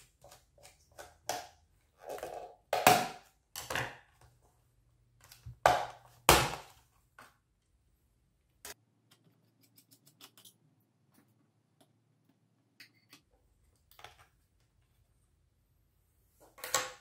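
The plastic bottom access cover of an HP ProBook 450 G5 laptop being unclipped and lifted off the chassis: irregular clicks, snaps and scrapes of plastic. They are busiest in the first seven seconds, then only a few faint ticks, with another short cluster near the end.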